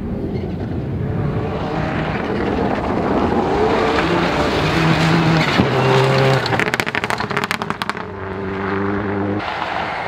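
Subaru Impreza rally car's flat-four engine at high revs on a gravel stage, its pitch rising and falling with gear changes. Near the middle comes a run of rapid crackles and pops, and after that a steadier, lower engine note.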